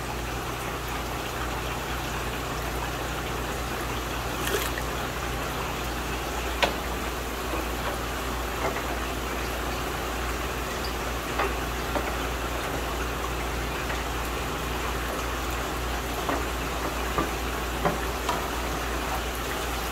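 Steady rushing and bubbling of aquarium aeration and water in a fish room full of tanks, over a low hum, with a few short knocks and splashes scattered through as a large fish net is worked in a tank.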